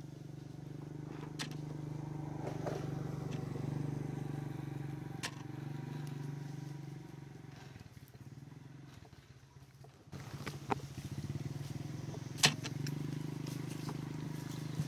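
Small engine running steadily at low speed. It fades about eight seconds in and comes back around ten seconds. A few sharp clicks sound over it, the loudest about twelve and a half seconds in.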